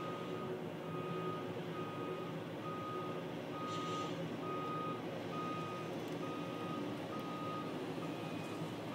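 A rail track maintenance machine's backup alarm beeping steadily, a little under once a second, over the machine's engine running. A brief hiss comes about four seconds in.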